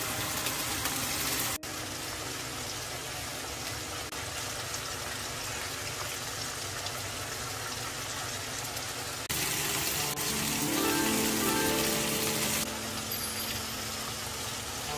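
Hot oil sizzling steadily as floured pieces of semi-dried pollack deep-fry in a pot, louder for a few seconds past the middle.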